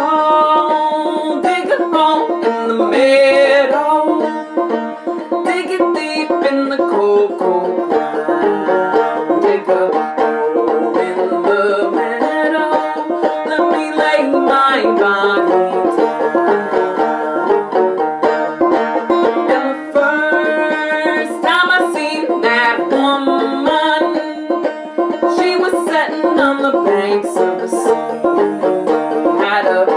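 Open-back banjo played clawhammer style, a steady rhythm of plucked and brushed notes, with a woman singing along in an old-time style.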